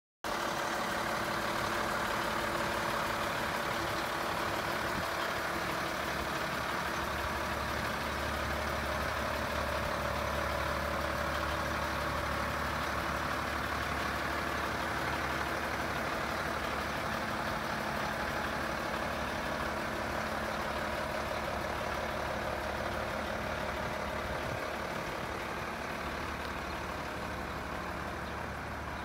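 International DT-466 turbo diesel engine of a 1991 International 4900 fire engine idling steadily, easing slightly near the end.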